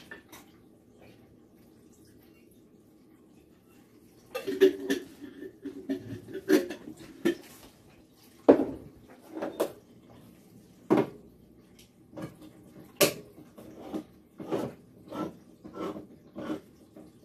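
Kitchen handling: a glass jar and dishes clinking and knocking, with several sharp knocks, then a run of regular splashes about twice a second near the end as dill pickle juice is poured into the slow cooker.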